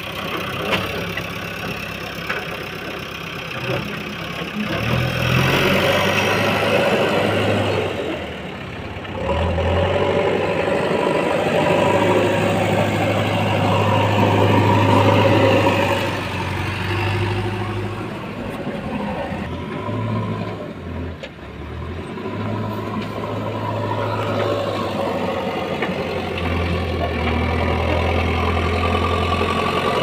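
JCB backhoe loader's diesel engine running, growing louder several times as it works under load and easing back in between.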